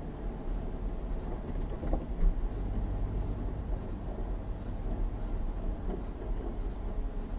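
A car driving slowly over a snow-covered road, heard from inside the cabin: a steady low rumble of engine and tyres on snow, with a short knock about two seconds in.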